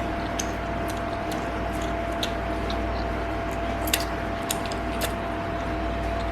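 Close-up chewing and mouth sounds from eating toasted baguette with seafood salad: scattered short crisp clicks and crunches over a steady background hum.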